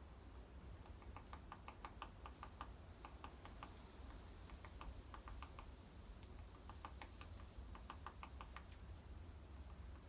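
Small bird pecking at seed on a hanging feeder: bursts of quick, light taps, several a second, with short pauses between bursts. A few faint, very high, brief chirps.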